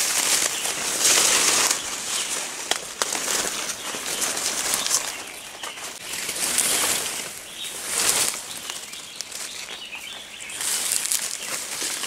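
Leaves, fern fronds and twigs brushing and rustling in repeated swishes as someone pushes through dense undergrowth on foot, with a sharp snap a little under three seconds in.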